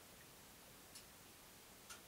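Washing machine paused and quiet: near silence with two faint clicks about a second apart.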